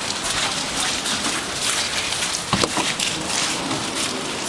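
Bustle of passengers boarding a commuter train: shuffling footsteps on a snowy platform and into the carriage, clothing rustling, over a steady hiss with crackling.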